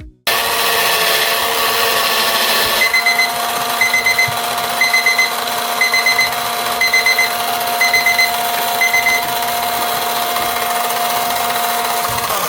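Let's Resin electric resin sander and polisher running steadily with a constant hum while polishing resin on its 5000-grit pad, then cutting off near the end. From about three seconds in, a digital kitchen timer beeps in groups of short high beeps about once a second, marking the end of the timed three-minute sanding run.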